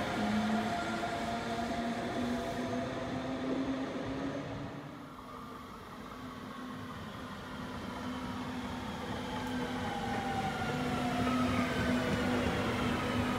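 DB class 146 electric locomotive pulling double-deck coaches away, its traction whine rising slightly in pitch and then fading by about five seconds in. A Regio-S-Bahn electric multiple unit then runs in with wheel and rail rumble, its motor whine falling in pitch as it slows.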